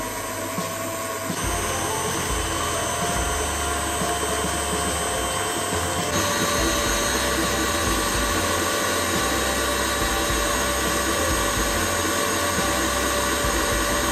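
KitchenAid Artisan stand mixer running steadily, its motor whining as it beats a thick cream-and-cheese frosting in a glass bowl. The tone shifts abruptly twice, about a second and a half and about six seconds in.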